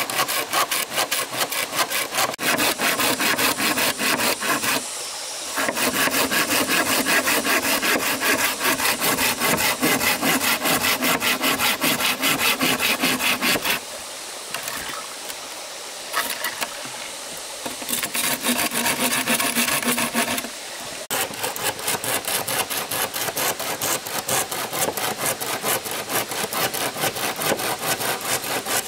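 Hand saw cutting through wood in quick, even strokes. It stops briefly about five seconds in and again near the end, and goes quieter for a couple of seconds in the middle.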